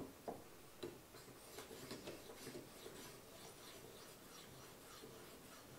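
Edge Pro Apex sharpening stone drawn lightly along a knife edge in faint, repeated scraping strokes, roughly two a second. The stone is grinding a narrow micro-bevel on the edge.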